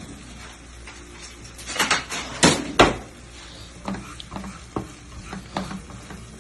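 Kitchen utensils clinking and knocking against cookware while eggs are prepared for an omelette. There are a few sharp knocks about two to three seconds in, then lighter, irregular taps.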